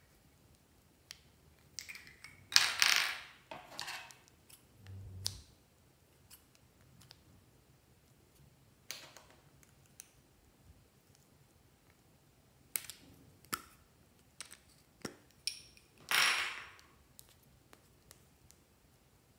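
Lipstick tubes being handled close up: sharp clicks of the metal cases and caps, and scissors snipping off pieces of lipstick. Two louder swishing sounds, about a second each, come a few seconds in and again near the end.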